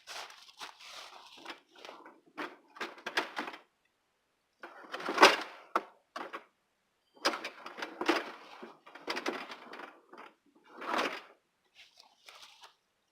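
Crunching and rustling on dry leaf litter and twigs in irregular spurts with short pauses, with a louder knock about five seconds in.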